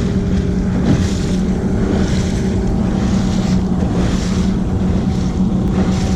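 Wind buffeting a chest-mounted action-camera microphone on a sailboat, with water rushing and splashing along the hull in surges every second or two. A steady low hum runs underneath.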